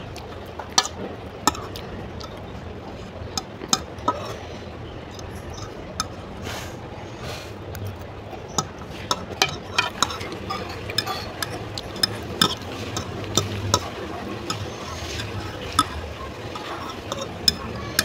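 Metal fork scraping and clinking against a plate while gathering leftover noodles. The sharp clicks are irregular and come more often in the second half.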